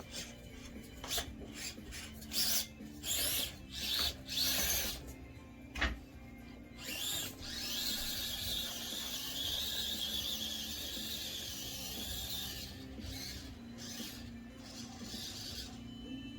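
Axial SCX24 Deadbolt micro RC crawler's motor and gears whirring in short bursts of throttle, then running steadily for about five seconds from around eight seconds in.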